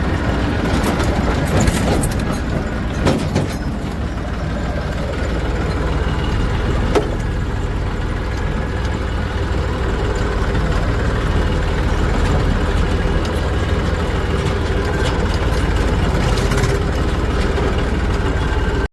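Heavy diesel engine running steadily, with a few sharp knocks about two, three and seven seconds in.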